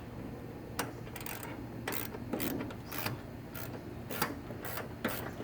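Socket wrench turning a nut onto the snowblower's axle bolt: a run of short metallic clicks and scrapes, about two a second, some louder than others.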